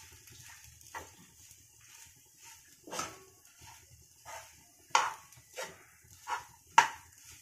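A steel spoon stirring crumbly upma in a frying pan, knocking and scraping against the pan with about seven sharp clinks at irregular intervals.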